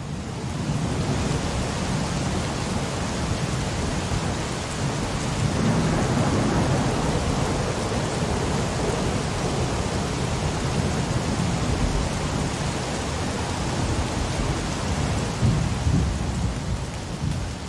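Heavy rain from a hurricane pouring down steadily: a dense hiss of rain with a low rumble beneath it.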